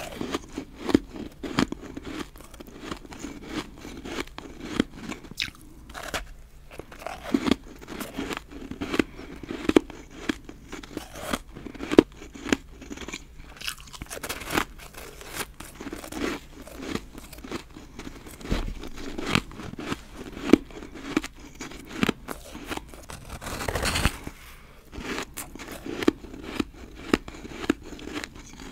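Dry, powdery snowballs of refrozen shaved ice being bitten and chewed: a steady run of sharp, crisp crunches.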